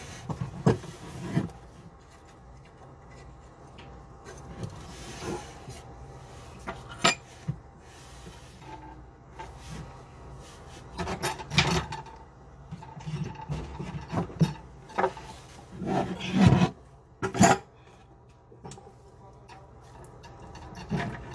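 Hand tools scraping, rubbing and knocking irregularly against the old bathroom faucet's housing assembly as it is worked loose, with a cluster of louder clanks about halfway through and again near two-thirds of the way in.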